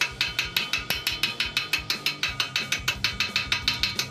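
Chipping hammer tapping quickly on a freshly arc-welded steel motorcycle frame, knocking the slag off the weld bead: a steady run of sharp metallic taps, about seven a second.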